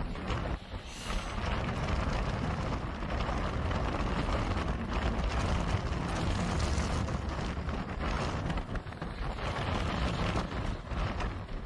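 Strong storm wind rushing and gusting over the recording phone's microphone, with a brief lull about half a second in.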